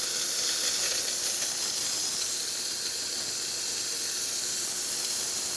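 VBM espresso machine's steam wand venting a steady, strong hiss of steam after its steam valve was repaired: full steam pressure, with no leaks.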